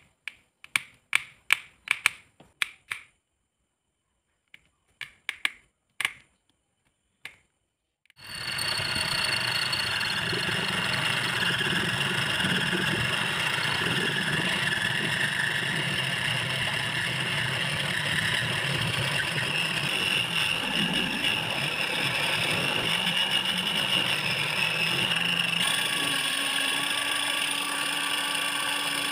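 Sharp small clicks as tiny screws are driven with a precision screwdriver. About a third of the way in a small lathe starts and runs steadily, spinning a clear plastic disc while a hand-held cutting tool shaves it.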